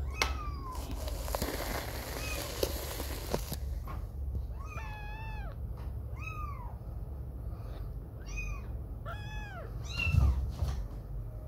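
A very young tabby kitten meowing: one high call at the start, then a run of about five short, high-pitched meows that each rise and fall in pitch. A low thump comes near the end.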